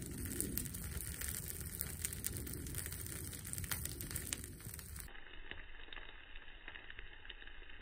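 Burning pine log crackling, with many small sharp pops from the resinous wood. About five seconds in the sound abruptly turns duller and thinner.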